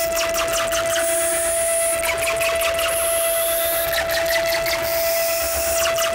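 Electronic noise music: a steady feedback tone under clusters of crackling clicks, with passages of very high hiss that come and go.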